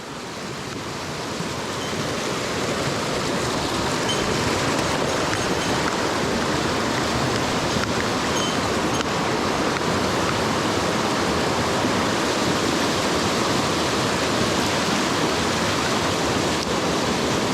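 Mountain stream water rushing steadily, rising in loudness over the first couple of seconds and then holding even.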